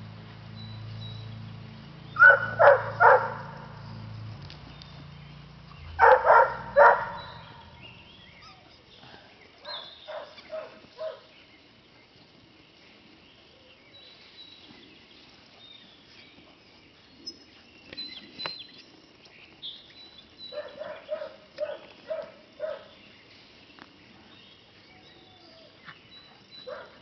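English Setter puppy barking in short runs of three or four barks, the two loudest runs in the first seven seconds and quieter runs later. A low hum underneath fades out about seven seconds in, and faint bird chirps come and go.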